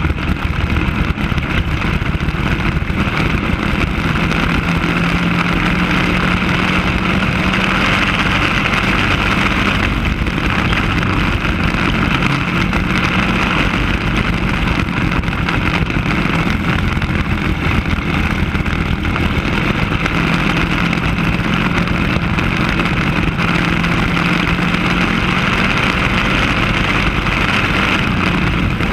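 Racing kart engine at racing speed, heard from on board, running continuously with its pitch shifting now and then through the laps.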